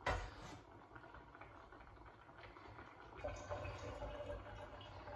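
A single knock, then faint liquid sounds as the hot cooking water is drained off boiled noodles.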